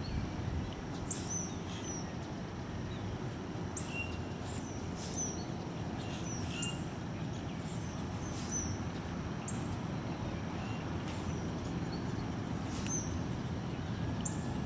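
Short, high bird chirps at irregular intervals, some in quick pairs, over a steady low background rumble.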